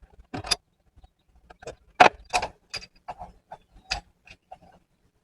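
Irregular sharp metallic clicks and clinks of hand tools against metal, a dozen or so, the loudest about two seconds in, as the engine's harmonic balancer is worked off with a puller.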